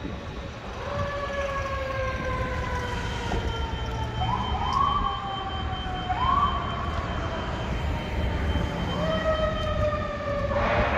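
Fire engine siren wailing as the truck responds, from a 2023 Spartan ER MetroStar pumper: the pitch rises quickly about four times and falls slowly in between. A louder rush of noise comes in near the end.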